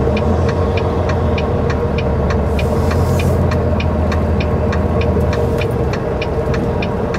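Volvo semi truck's diesel engine idling steadily, heard from inside the cab, with a regular light ticking about three times a second. There is a brief hiss about three seconds in.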